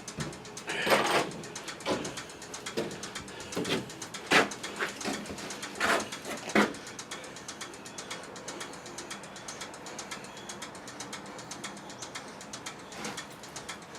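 Workshop handling noises: several sharp knocks and clunks in the first seven seconds, then a faint, rapid run of fine clicks.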